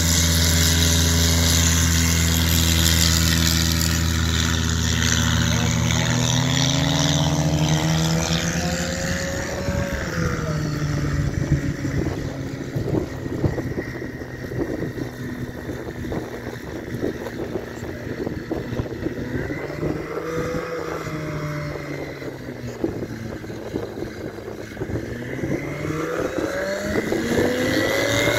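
Light aircraft's piston engine and propeller running steadily at high power, then rising and shifting in pitch about six to nine seconds in as the plane moves off. Through the middle the engine is faint under a gusty rumble of wind on the microphone, and it grows louder again near the end as a plane comes close.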